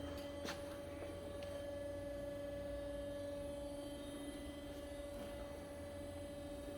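Ajax AJBS460SA horizontal bandsaw running with a steady electric hum and a faint held whine as its saw bow is raised, with a couple of light clicks in the first second.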